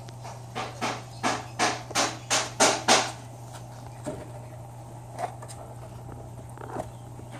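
A quick run of sharp knocks or taps, about three a second, for a couple of seconds, then a few scattered fainter ones, over a steady low hum.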